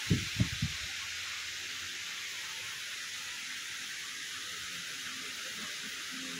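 Steady high hiss, with a few soft low thumps in the first second.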